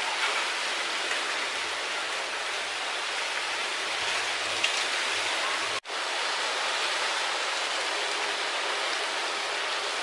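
A steady, even hiss of noise that drops out for an instant a little before six seconds in.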